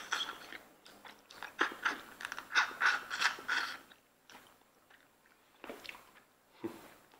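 Close-up eating sounds: a person biting, crunching and sucking on sauced pieces of cooked lobster shell, in clustered bursts between about one and a half and four seconds in, with a few softer sounds near the end.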